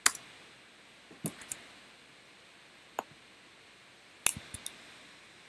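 Scattered sharp clicks at a computer, about eight in all, coming singly and in quick clusters of two or three.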